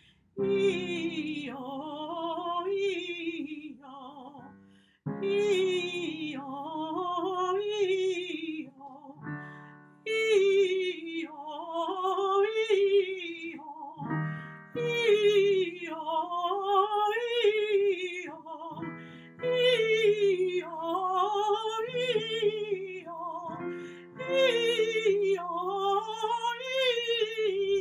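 A woman singing a vocal warm-up exercise without words, about six repeated phrases of notes that rise and fall, each a few seconds long with short breaks between. Under the voice, held low accompaniment notes change with each phrase.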